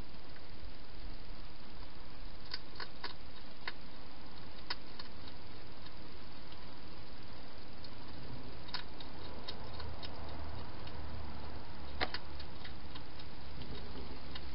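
Wild hedgehog eating from a bowl: irregular crisp clicks and crunches of chewing, in scattered bursts with a sharper click about twelve seconds in, over a steady hiss.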